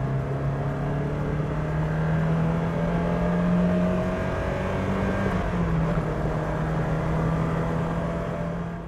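Vauxhall Chevette HS's 2.3-litre four-cylinder engine pulling under way, heard from inside the cabin. The engine note climbs slowly, dips briefly about five seconds in, then holds steady before fading out near the end.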